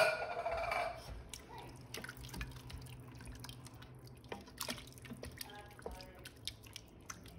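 A wooden spatula stirring diced tomatoes into a thin, brothy sauce in a stainless steel Instant Pot inner pot: wet sloshing and squelching with many small irregular knocks of the spatula against the pot. A sharp knock with a short ringing comes right at the start, and a low steady hum runs underneath.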